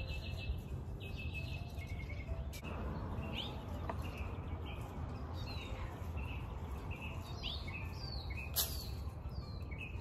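Small songbirds chirping, many short downward-sliding calls that come more often in the second half, over a steady low rumble of background noise. A single sharp click sounds late on.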